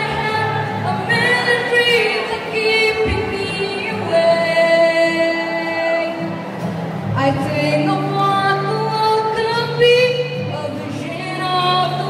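A woman singing a slow melody with long held notes over steady instrumental accompaniment.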